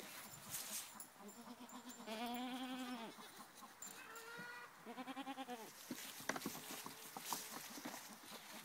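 Sheep bleating: several quavering bleats, the two loudest about two and five seconds in, followed by a few faint clicks.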